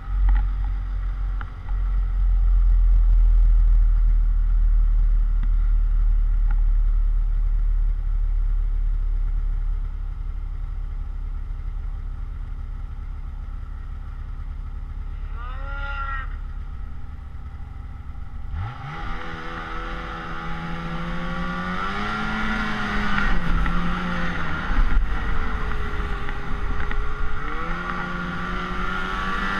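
Snowmobile engine running under way, with heavy wind rumble on the microphone. The engine note is faint at first and rises briefly in pitch about halfway through. From about two-thirds of the way in it comes through clearly, its pitch rising and falling with the throttle.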